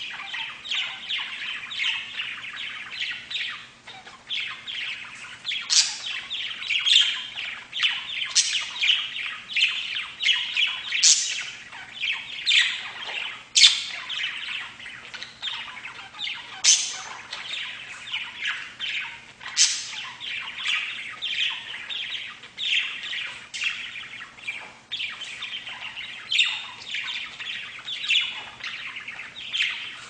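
A flock of budgerigars chattering and warbling without a break, with sharper high chirps standing out every second or two.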